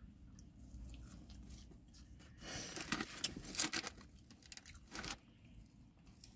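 A person chewing and crunching food, with a run of crunches in the middle and another a little later.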